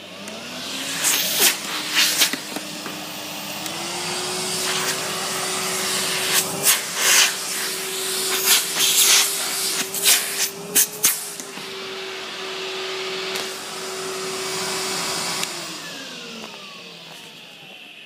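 Numatic Henry HVR 200A vacuum cleaner starting up with a rising whine and a loud rushing hiss. The whine steps up in pitch about three and a half seconds in and then holds steady. A string of sharp clacks sounds through the middle. About fifteen seconds in the whine falls away as the motor spins down.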